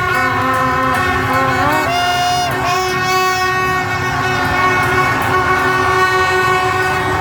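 Many horns blaring at once from a crowd of celebrating football fans, a mix of motorbike horns and hand-held plastic horns. The long tones overlap, several bend in pitch, and a steady din of motorbike traffic runs underneath.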